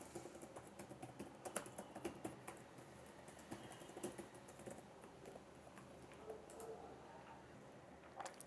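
Faint, irregular clicks and taps, thick in the first half and sparser later, with one louder click near the end.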